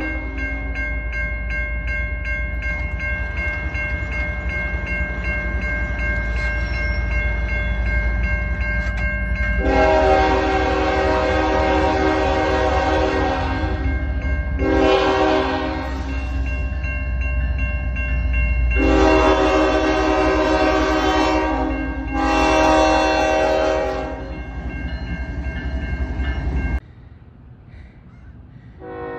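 Locomotive air horn sounding a chord: a long blast about ten seconds in, a short one, another long one and a short one, over a train's heavy rumble. The sound cuts off suddenly near the end, and another horn starts just as it finishes.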